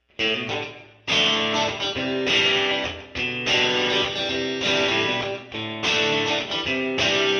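Intro theme music of strummed guitar chords. A first chord rings out and fades, then the music picks up with a steady run of chords about a second in.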